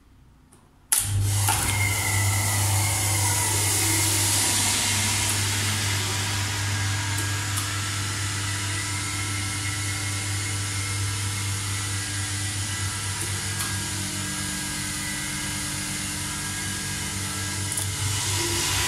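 Schindler hydraulic elevator's pump motor switching on with a sharp contactor click about a second in, then running with a steady low hum and a hiss.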